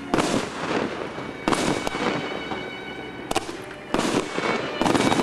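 Multi-shot firework fan barrage cake firing: sharp bangs of shots launching and bursting, spaced irregularly about once a second, with a tighter, louder cluster near the end.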